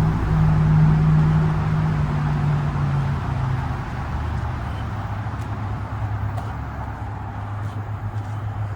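Road traffic: a motor vehicle's steady hum holds for about the first three seconds, then gives way to a lower steady traffic rumble that slowly fades.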